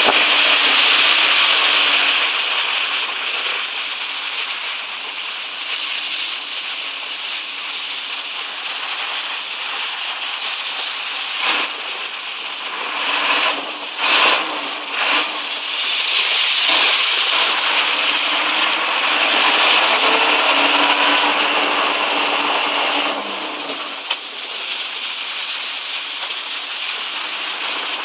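Steady rushing hiss of a vehicle moving on a wet road in the rain: tyre spray and wind, heard from aboard a truck. A few brief louder bumps and rustles come around the middle.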